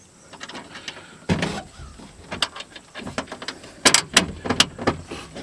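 Irregular metallic clicks, clinks and knocks of hand tools and a bolt being worked into the steel inner panel of a truck door while the window regulator is mounted, with a cluster of sharper clanks near the end.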